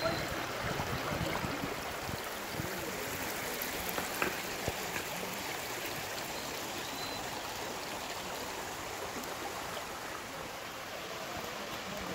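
Stream water flowing steadily over rocks with a continuous rushing and trickling.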